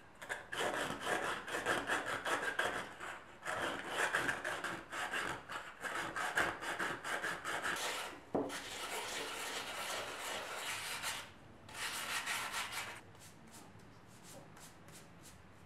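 Hand sanding: sandpaper scraping over a clay-covered styrofoam eyeball in runs of quick back-and-forth strokes, broken by brief pauses. It fades to a faint rub after about thirteen seconds.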